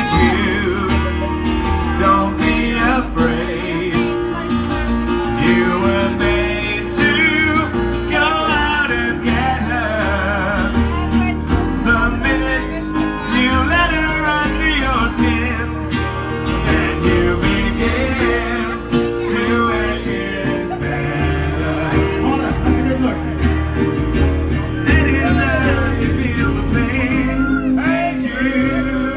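Live acoustic guitar and Yamaha electronic keyboard playing a song, with a man singing over them.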